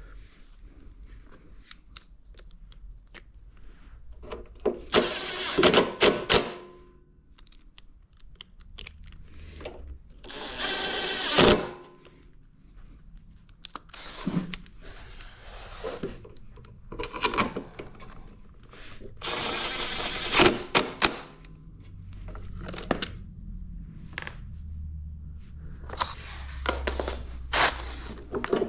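Hand tools and small metal parts being handled during repair work: intermittent clinks, knocks and thunks, with three bursts of hiss about a second long.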